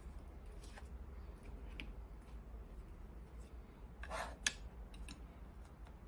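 Faint handling sounds from fingers working inside an opened handheld diagnostic scanner: small scattered clicks of plastic and the battery connector. About four seconds in, a short rustle and then a single sharp click as a hand presses on the board and battery.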